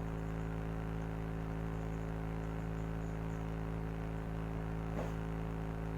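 A steady electrical hum made of several fixed tones, with a faint short sound about five seconds in.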